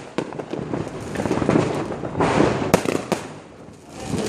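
Fireworks going off: a dense run of crackling and popping with several sharp bangs, the loudest a little under three seconds in, easing off briefly near the end.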